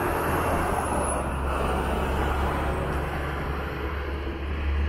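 Street traffic: a large vehicle drives past with a steady low rumble and a faint high whine that falls in pitch, its noise easing off in the second half.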